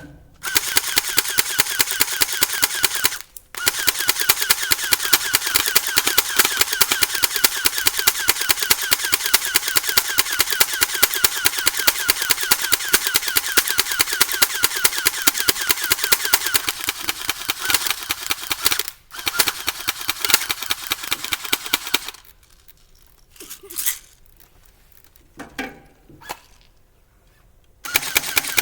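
Airsoft gun firing long, rapid automatic bursts: a fast, even stream of shots that stops briefly about three seconds in and again after about nineteen seconds. Near the end come a few short bursts with quiet between them, and then a long burst starts again.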